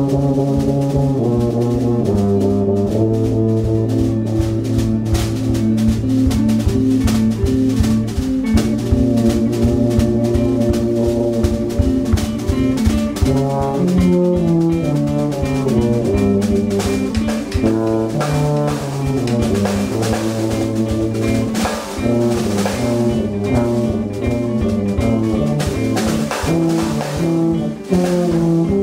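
Small instrumental band of tenor saxophone, electric guitar, tuba and drum kit playing a jazz-tinged tune, the tuba holding low notes under the melody over busy drumming.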